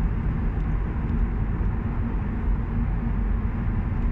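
Steady road and engine noise inside a moving car's cabin: a low rumble with a faint steady hum and no sudden sounds.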